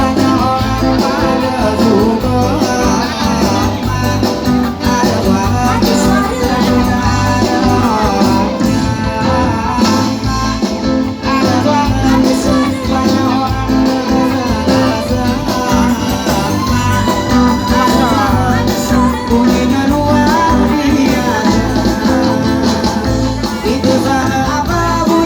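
A singer performing a song with band accompaniment over a steady bass beat, played loud through a PA.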